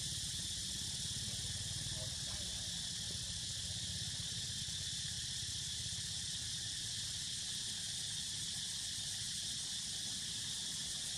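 Steady high-pitched insect chorus, even throughout, over a low steady hum.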